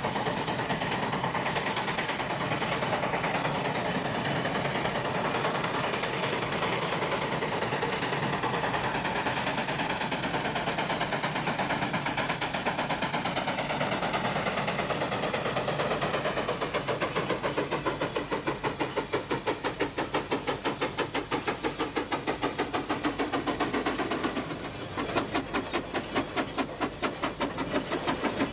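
Steam traction engine working: a steady hiss and clatter, then from about halfway a regular beat of exhaust chuffs, several a second, which eases off briefly near the end and starts again.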